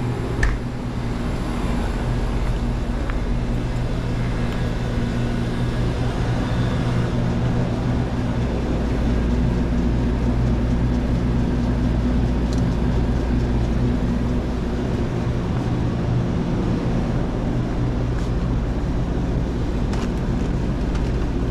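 Steady low hum of a shop's open refrigerated display cases, running without a break. There is a sharp knock about half a second in and a few faint clicks later on.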